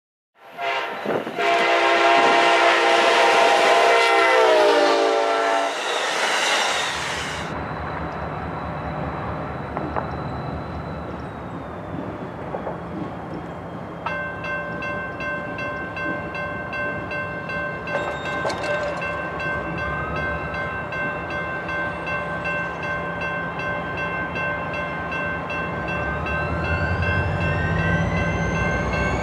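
A diesel locomotive's multi-chime horn sounds loudly for about six seconds, sagging in pitch as it ends, followed by the low rumble of the locomotive. About halfway through, a railroad crossing's electronic bell starts ringing steadily as the signals activate, and near the end the locomotive's rumble grows louder and a rising whine comes in as it approaches the crossing.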